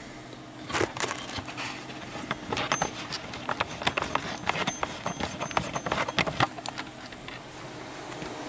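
Footsteps on a concrete shop floor: a run of irregular knocks and scuffs lasting about six seconds, over the steady background hum of the shop.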